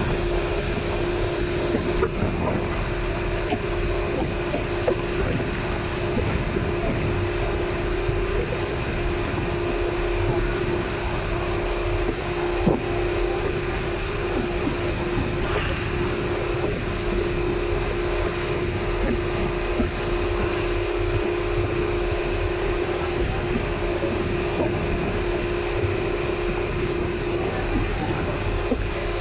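Inboard engine of a motorised outrigger boat running steadily while under way, a constant drone with a strong steady hum and low rumble.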